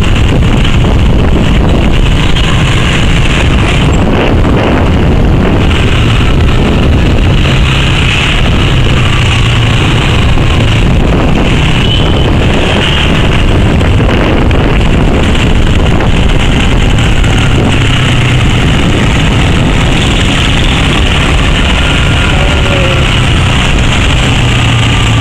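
Loud, steady wind noise on the microphone over a moped's engine running, recorded from the moped as it rides along a road in traffic.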